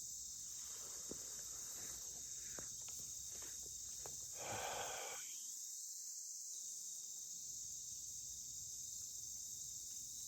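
Steady high-pitched chorus of crickets, with a brief soft rustle about four and a half seconds in.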